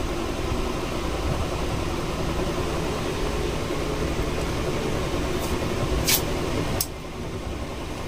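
Steady mechanical hum and whir with a low rumble. Two sharp clicks come near the end, and the hum drops off noticeably after the second.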